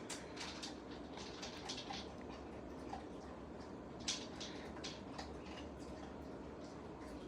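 A pet dog eating from its bowl: faint, irregular short crunches and clicks, a few a second.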